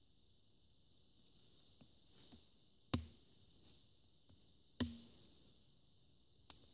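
Two sharp chops of a Gerber Bear Grylls Ultimate survival knife blade into a wooden stick on a tree stump, about two seconds apart, each with a short woody ring, and a lighter knock near the end.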